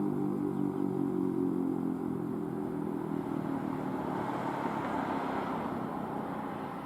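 Federal Signal Model 7B warning siren winding down at the end of its five-minute alert, its low tone dying away over the first few seconds. Then the noise of a passing vehicle rises and falls.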